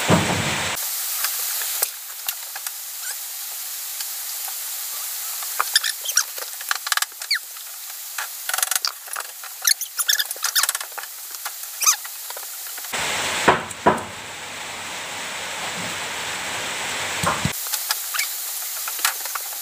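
Small scratching, crackling and clicking from hands twisting and handling thin insulated wire to splice it, over a steady hiss. About two-thirds of the way in there are a few seconds of duller, fuller rubbing noise.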